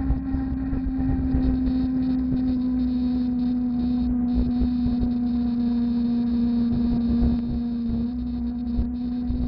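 Electric fat bike's 250 W, 48 V hub motor whining at a steady pitch while riding, easing slightly lower about eight seconds in. Underneath is a low rumble of wind and road noise.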